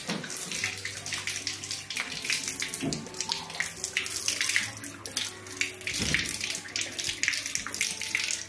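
Water running from a small wall tap and splashing into cupped hands as they scoop it up to rinse the mouth and face during wudu ablution, with uneven splashing throughout.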